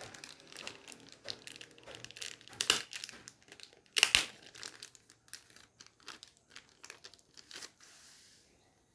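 Plastic packaging crinkling and rustling as it is handled, in irregular crackles with two louder ones around the third and fourth seconds.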